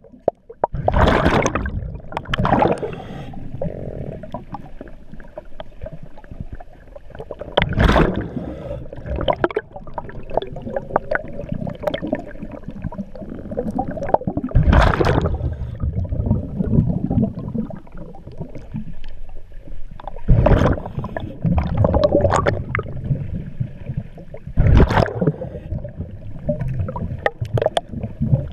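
Scuba diver breathing through a regulator underwater: a loud burst of exhaled bubbles every five to seven seconds, with gurgling and a low rumble in between.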